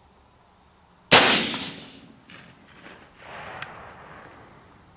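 A single shot from a Bushmaster Carbon 15 rifle chambered in .223/5.56, about a second in: one sharp crack with a trail of echo dying away over about a second.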